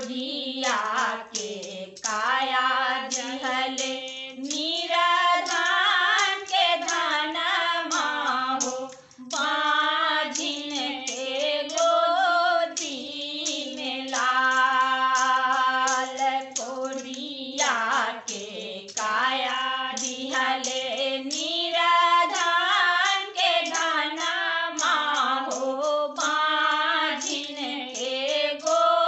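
Women singing a Chhath geet, a devotional folk song in Maithili, in long melodic phrases with short breaks between them.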